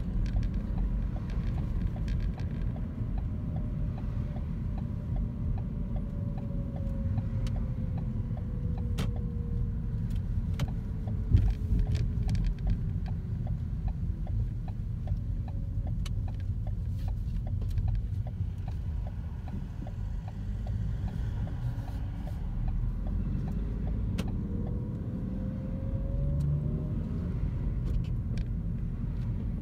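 Car engine and road rumble heard from inside the cabin while driving. The engine note falls slowly as the car slows and rises again near the end, and a regular ticking runs through the first half.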